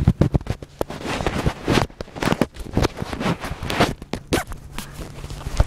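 Rustling, scuffing and scraping of clothing and gear against the ground, with irregular knocks, as a person dives to the ground and moves about on it.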